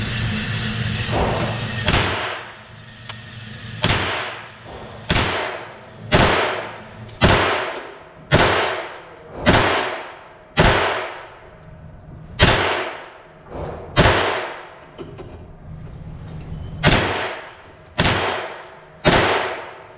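A 9mm AR-15-pattern carbine (Foxtrot Mike FM-9 upper) fires single aimed shots, thirteen in all, from about two seconds in. Most come about one a second, with a few longer pauses, and each shot rings on in the echo of the indoor range. A steady noise fills the first two seconds before the shooting starts.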